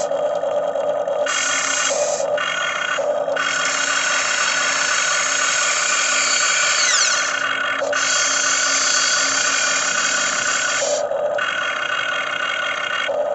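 Huina RC excavator's small electric motors and gearboxes whining as it works, the tone switching every second or two between a lower buzz and a bright high whine as different functions start and stop.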